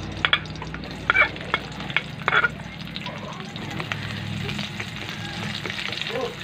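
Garlic and onion sizzling in hot oil in a metal wok, stirred with a spatula. The spatula scrapes and knocks against the pan several times in the first two and a half seconds.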